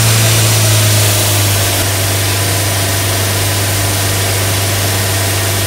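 Maruti Suzuki Ignis engine running at raised, held revs, a steady drone that settles slightly lower in pitch about a second in. It is being revved to warm the engine so the radiator cooling fan switches on.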